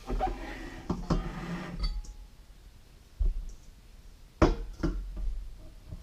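Knocks and clicks of dishes and utensils being handled on a table, with a short faint beep about two seconds in and a sharper knock a little after the middle.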